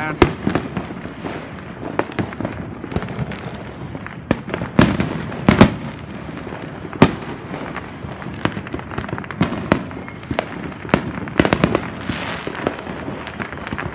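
Many fireworks and firecrackers going off at once: a constant crackle of pops, broken by sharp loud bangs of aerial shells. The loudest come about five and seven seconds in, and a quick cluster of pops comes near the end.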